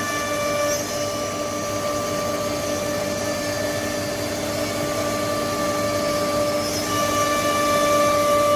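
Four-head CNC nesting router running with a steady high whine and its overtones. The whine drops back under a rougher noise from about a second in and comes up strongly again near the end.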